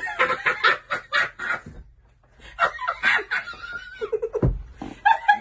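A woman laughing hard in quick repeated bursts, pausing briefly and starting again, with a single dull thump about four and a half seconds in.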